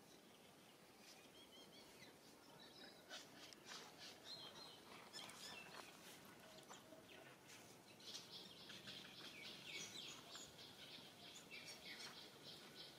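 Faint outdoor ambience with scattered short high chirps and clicks, thickening into a steadier high chatter about eight seconds in.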